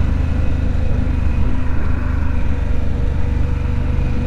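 Harley-Davidson Pan America 1250 Special's Revolution Max V-twin engine running steadily at light, even throttle at about 25 mph, heard from the saddle.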